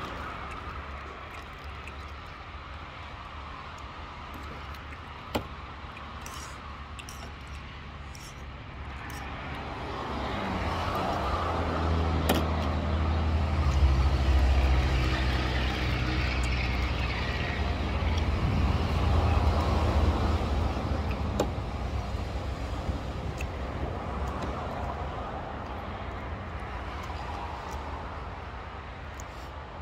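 A motor vehicle passing by: a low engine rumble that builds from about ten seconds in, is loudest around the middle and then fades away, over a steady low rumble. A couple of sharp clicks stand out, one about five seconds in and one about twelve seconds in.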